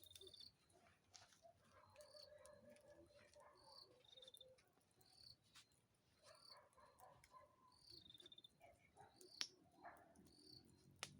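Faint chirping of crickets, short high chirps repeating about once a second, three of them drawn out into quick trills. A couple of sharp crackles from the campfire near the end.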